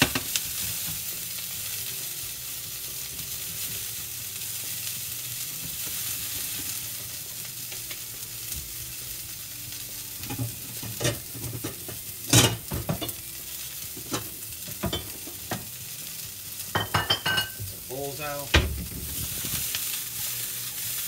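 Broccoli florets frying in hot olive oil in a skillet, a steady sizzle. In the second half there are a few sharp knocks and clinks of the pan being handled, and near the end the pan is tossed and the sizzle swells.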